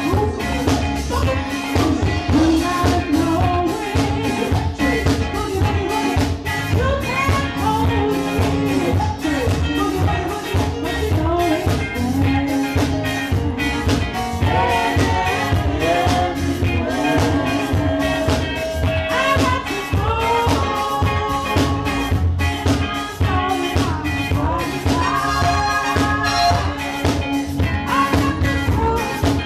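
Reggae band music with a steady drum beat, heavy bass and a singer's voice.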